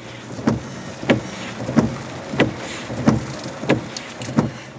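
Windshield wipers running, with a short thump at the end of each stroke about every two-thirds of a second, over steady rain hiss and engine hum inside a car's cabin.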